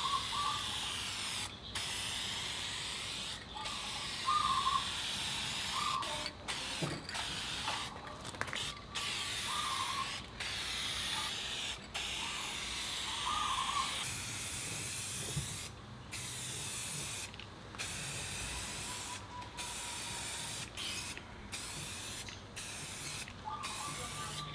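Aerosol can of black spray paint hissing as the paint is sprayed on in a series of passes, each a second or two long, with brief breaks between them.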